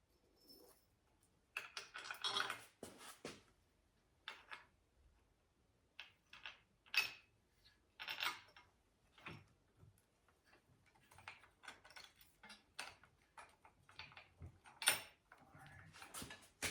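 Irregular clicks, knocks and rattles of metal parts and hardware being handled while a chain grinder is set up on its stand, with a few sharper knocks near the middle and the end.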